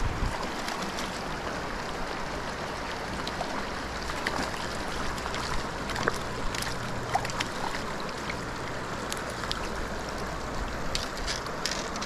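Small mountain creek running steadily over rocks, a constant rushing of water, with a few faint clicks and splashes here and there.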